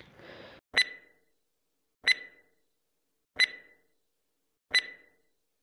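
Quiz countdown tick sound effect: four sharp ticks, each with a brief ring, evenly spaced about one and a third seconds apart.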